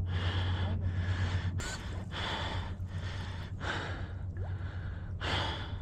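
A man breathing hard and fast through the mouth, a quick run of alternating in and out breaths about every three-quarters of a second: winded from wading through deep mud.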